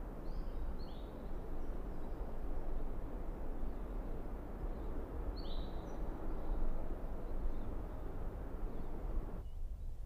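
Outdoor ambience: a steady low rumbling hiss with a few short bird chirps, a cluster of three near the start and two more about halfway through. Near the end the hiss cuts out suddenly, leaving only the low rumble.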